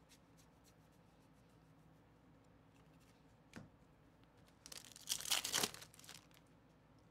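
A foil trading-card pack torn open by hand, a brief tearing and crinkling of the wrapper lasting about a second and a half. Before it come faint ticks of cards being thumbed through and a single sharp click.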